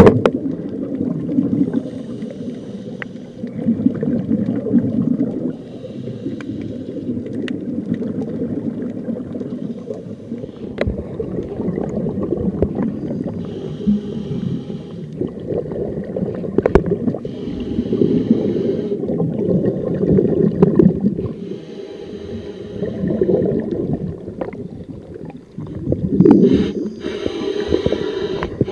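Scuba diver's breathing heard underwater: a muffled rumble with the regulator's exhaled bubbles bursting out in a hissing gush every few seconds. Occasional sharp clicks and knocks come through as well.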